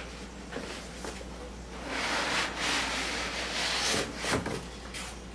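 Paper and cardboard rustling and scraping as a yellow paper envelope is pulled out of an opened cardboard shipping box. The rustle is loudest in the middle, with a couple of sharp clicks.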